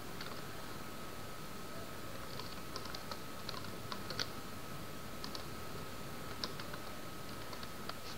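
Faint, irregular keystrokes on a computer keyboard, starting a couple of seconds in, over a faint steady high tone and hiss.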